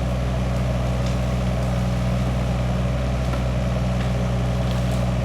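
Diesel engine of a small excavator running steadily, a constant low drone.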